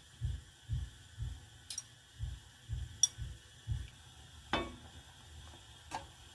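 Long metal chopsticks clicking against a pot and a ceramic plate as fried vegetable tempura is turned in simmering broth and lifted out: four sharp clicks, the loudest a little past halfway, over a faint hiss of simmering. Low soft thumps about twice a second run under the first two-thirds and then stop.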